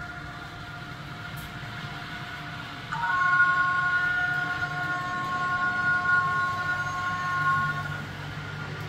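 HO scale model train running on a layout, with a steady low rumble. About three seconds in, a louder chord of several steady tones sounds, held for about five seconds before stopping.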